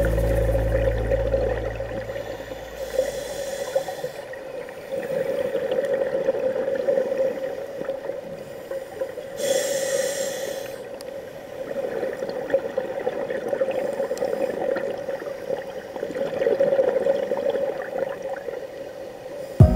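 A scuba diver's breathing through a regulator, heard underwater: two sharp hissing inhalations, about three and ten seconds in, and bubbling exhalations that swell and fade every few seconds over a steady hum.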